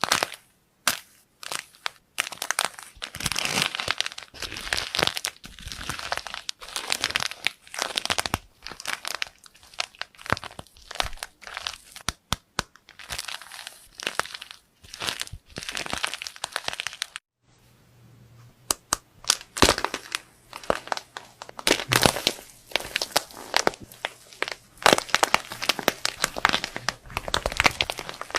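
Slime being squeezed, stretched and poked by hand, giving dense crackling clicks and crinkly squelches in irregular clusters. The sound stops briefly about two thirds of the way in, and after that a faint steady low hum runs underneath the crackling.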